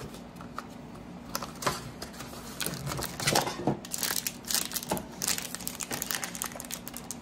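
A cardboard trading-card box being opened and a stack of foil-wrapped NBA Hoops card packs pulled out and handled, crinkling in irregular rustles and clicks that get busier from about four seconds in.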